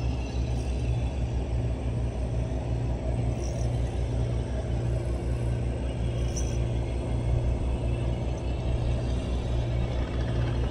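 Small tiller-steered outboard motor running steadily with an even, low throb, pushing a small boat along.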